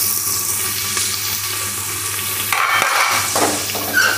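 Chopped onions and whole spices sizzling steadily in hot oil in an aluminium pressure cooker, with a spoon stirring them in the pan; the onions have just gone in to fry.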